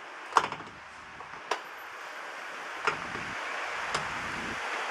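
Four sharp clicks at irregular gaps of a second or more, over a steady background hiss.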